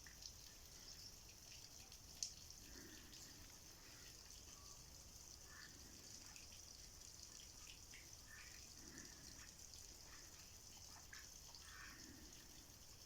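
Near silence: a faint steady hiss with scattered small ticks and one sharp click about two seconds in.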